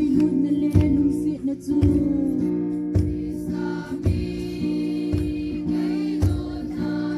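Music: a group singing a church song over sustained accompaniment and a steady drum beat, about one beat a second.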